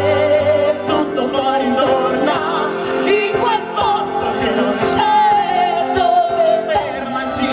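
Music: a singing voice with vibrato gliding over sustained chords.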